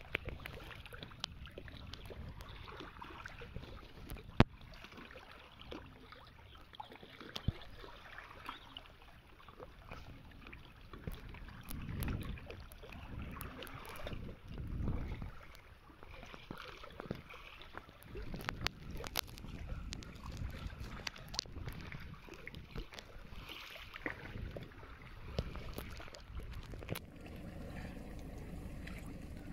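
Outdoor ambience of wind gusting on the microphone, with scattered sharp clicks of handling. Near the end it gives way to a steadier low rumble.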